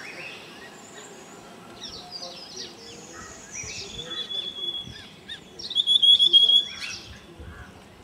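Several wild birds chirping and calling. One bird gives a rapid trill on a single high note, briefly about four seconds in and again, louder, about six seconds in.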